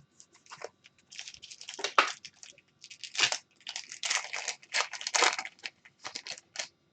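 Hockey trading cards and their plastic packaging being handled: irregular crinkling and rustling in many short bursts.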